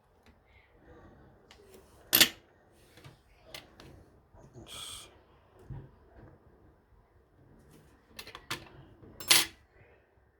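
Small metal lock parts and tools being handled on a hard surface: scattered light ticks, and two sharp clicks, one about two seconds in and one near the end, with a brief rustle about halfway.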